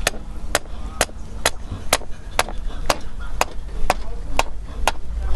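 Hammer blows in a steady rhythm, about two a second, as the copper earthing conductor for a lightning arrestor is fixed in the earth pit.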